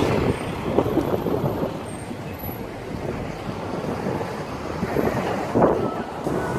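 Street traffic going by, with a box truck passing close at the start and wind buffeting the microphone in gusts.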